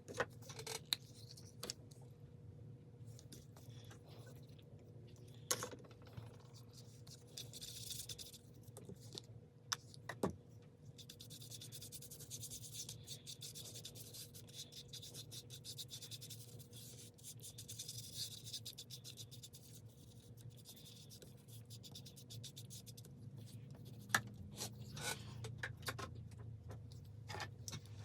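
Hand rubbing and scraping on a work surface, a dry hiss like filing or sanding by hand, broken by a few sharp clicks.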